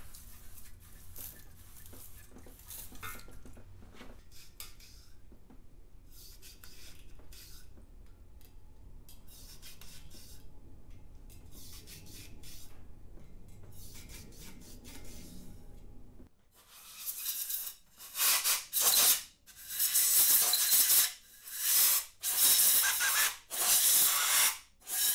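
A brush on safety wire rubs and scrapes faintly inside an LS V8 block's oil passage. About two-thirds of the way in, a compressed-air blow gun takes over with a string of short, loud hissing blasts, blowing the brake-cleaner-soaked passage dry.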